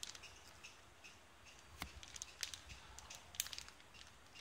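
Faint, scattered crinkles and clicks of a kitten's paws and claws moving over a plastic sheet and papers.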